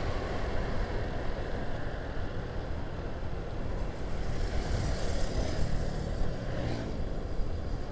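Wind rumbling and buffeting on a helmet-mounted microphone while riding a motor scooter, over the scooter's engine and tyre noise. This is the wind noise that the modified helmet mic still lets in at speed on open road. A hiss swells about five seconds in, as from traffic close by.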